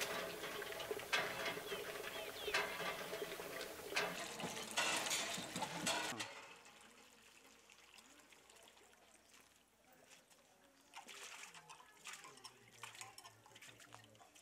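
A busy run of clinks and knocks that cuts off suddenly about six seconds in. It is followed by water from a hand pump splashing faintly into a metal pot.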